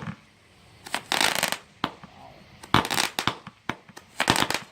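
Consumer fireworks going off in three bursts of rapid crackling pops, about a second and a half apart, with a few single sharp bangs between the bursts.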